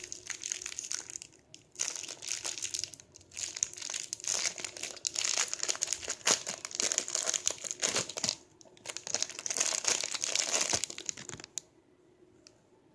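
Plastic packaging crinkling in irregular bursts as a squeeze toy is handled and squeezed, stopping abruptly near the end.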